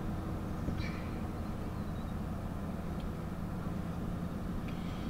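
A car's engine and tyre noise, heard from inside the cabin while driving: a steady low rumble.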